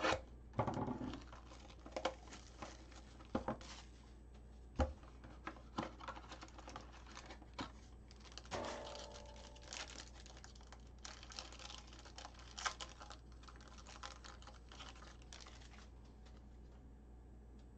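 A Topps Tier One baseball card box being opened: a knife cutting through the packaging, a foil-wrapped card pack crinkling, and cards being handled. It is a run of crinkles, rustles and small clicks that dies down near the end.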